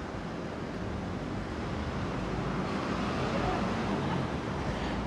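Steady city street ambience: a low hum of traffic, growing slowly louder.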